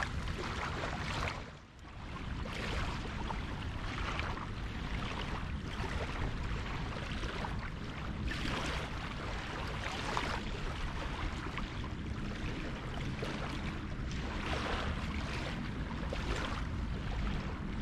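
Wind rumbling on the microphone over small waves lapping and slapping at the water's edge, rising and falling every second or two.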